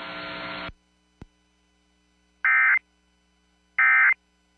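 Weather radio hiss cutting off, a click, then two short buzzy Emergency Alert System end-of-message (EOM) data bursts about a second and a half apart: the digital code that marks the end of the alert broadcast.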